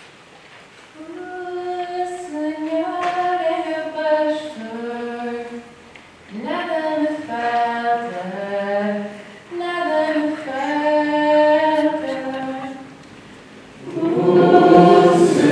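A woman's voice singing a slow sacred melody unaccompanied, in three phrases with short breaks between them. Near the end a louder, fuller group of voices comes in.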